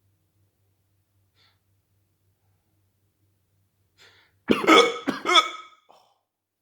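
A person hiccuping: two loud, voiced hiccups in quick succession about four and a half seconds in, followed by a small catch of breath.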